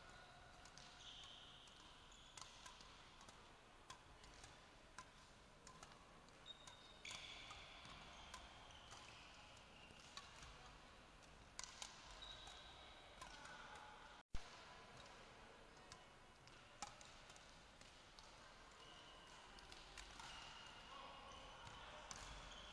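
Faint sounds of a badminton rally on a sports hall court: sharp clicks of rackets striking the shuttlecock and short high squeaks of court shoes on the floor. A single loud pop, with a moment of dropout, about halfway through.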